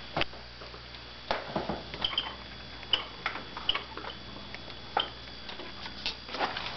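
Scattered light clicks and ticks, irregular and about half a second to a second apart, a few with a brief high chirp, over a low steady hum.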